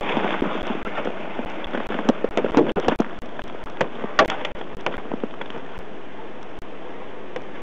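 Thumps and clicks of a man climbing onto and standing on a police car's hood, heard from the dashcam inside: a scatter of sharp knocks over the first five seconds, the loudest about four seconds in, then only a steady hiss.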